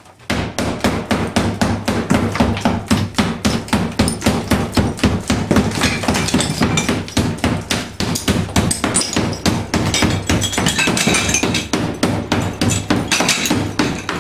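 Hammer blows knocking through a tiled drywall wall, a fast, steady run of sharp strikes at about four a second.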